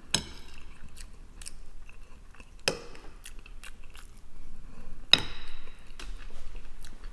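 Close-up chewing and mouth sounds of a person eating mashed potatoes and a meat cutlet, with scattered sharp clicks, the loudest three a moment in, near the middle and about five seconds in.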